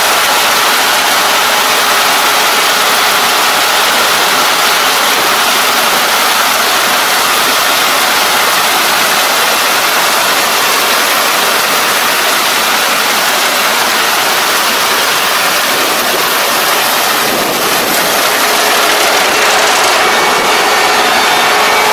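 Kubota ER470 combine harvester working close by, cutting and threshing lodged rice: loud, steady machine noise with no let-up.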